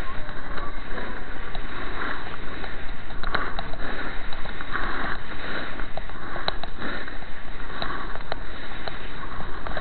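Steady scraping hiss of edges sliding over groomed snow during a fast downhill run, mixed with wind rushing over the microphone, surging now and then, with a few sharp clicks.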